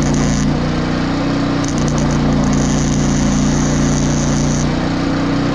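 Electric arc welding on a steel bolt: the arc crackles over the steady drone of the gasoline generator powering the welder, running under load.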